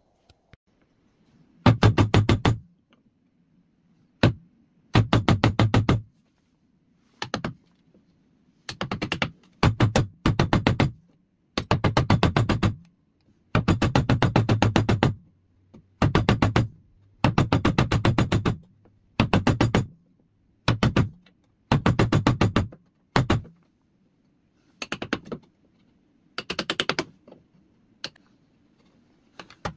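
A chisel driven with a hammer in quick runs of rapid light blows, about a second each with short pauses between, chopping out the waste between dovetail pins in a wooden board.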